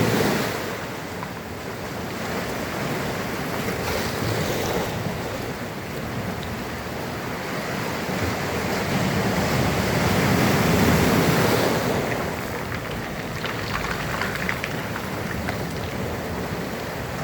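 Sea surf: waves washing in and breaking in a continuous wash that swells to its loudest a little past halfway, then settles into a fizzing, crackling wash of foam near the end. Wind buffets the microphone.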